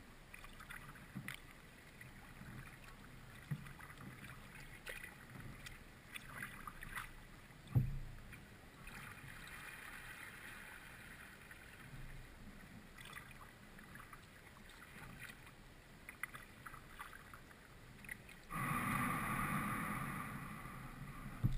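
Kayak paddling with small drips and splashes and a single knock about eight seconds in, then near the end the kayak's hull loudly scrapes over the creek bottom for about three seconds as it runs aground in the shallows.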